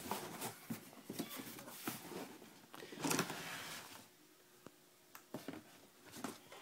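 Cardboard shipping box being opened by hand: the flaps and the contents rustle and scrape in uneven bursts, loudest about three seconds in, then a few light clicks.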